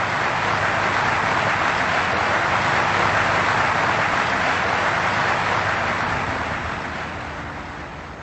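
Large audience applauding, swelling and then dying away.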